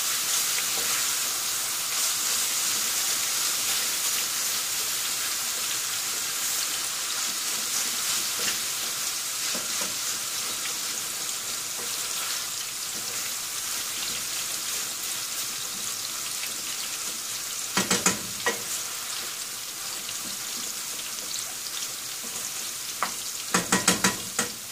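Whole eggplants deep-frying in oil with a steady sizzle, while minced beef with onions and peppers is stirred in a steel pan beside them. A few sharp knocks, the wooden spoon against the pan, come about eighteen seconds in and again near the end.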